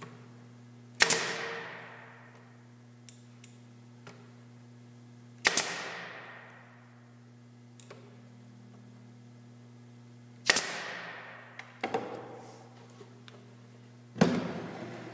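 Pneumatic finish nailer firing finishing nails into wooden corner trim: four sharp shots a few seconds apart, each with a short fading tail, and a couple of lighter clicks after the third.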